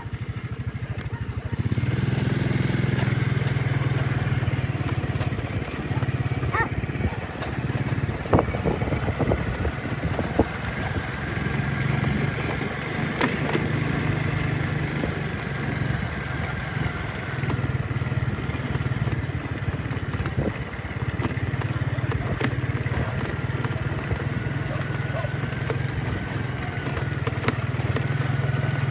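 A motor vehicle's engine running steadily at low speed, with a few scattered clicks and knocks over it.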